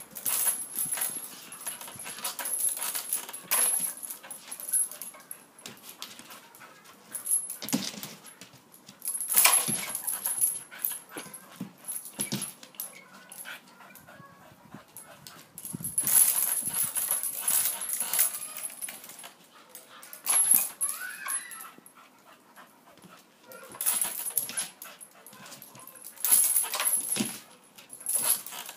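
A dog leaping at and hanging from a hanging rope tug toy, making small vocal sounds as it tugs. The sound comes in about six bursts of a few seconds each, with quieter gaps between.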